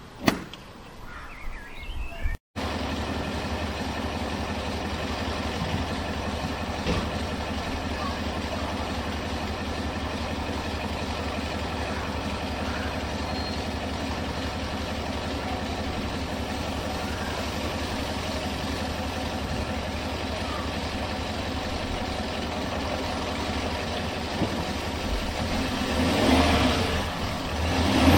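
Range Rover 4.4 TDV8 diesel V8 engine running. After a sudden cut a couple of seconds in it runs steadily, then swells louder near the end as it is revved or put under load.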